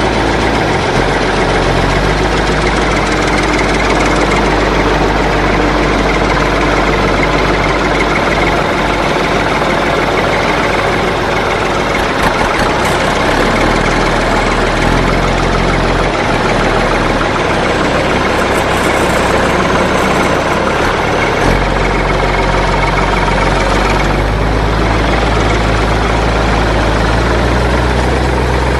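Tractor engine running steadily at idle, its low note shifting a few times.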